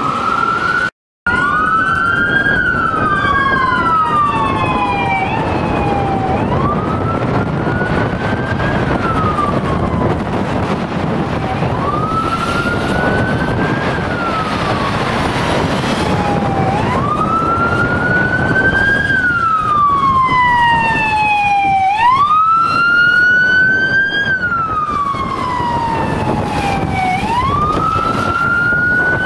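Police car sirens wailing: each cycle a quick rise in pitch and then a long slow fall, repeating about every five seconds, at times with a second siren sounding out of step, over traffic noise.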